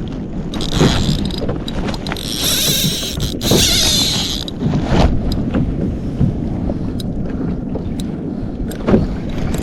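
Wind buffeting the microphone over water noise around a kayak, with a stretch of louder hiss about two seconds in and a few light clicks.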